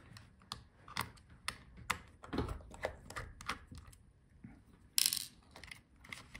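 A small screwdriver and the loosened power button board clicking and tapping against the laptop palmrest's metal frame, a sharp click about every half second at first, as the board is worked free. About five seconds in there is one short, louder scrape as the board is pulled out.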